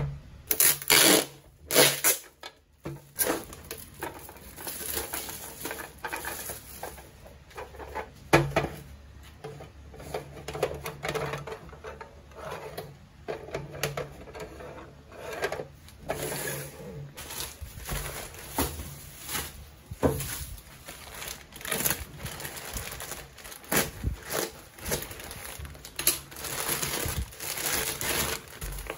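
Hard plastic clicks and knocks as a small white plastic drawer organizer is set down on a desk and its drawers handled, with rustling of plastic packaging growing near the end.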